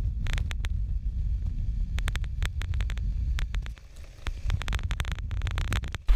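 Wind buffeting a handheld GoPro's microphone on a moving scooter, a dense low rumble broken by many sharp clicks and knocks as the camera is jolted over the bumpy dirt road. The rumble drops away briefly about four seconds in.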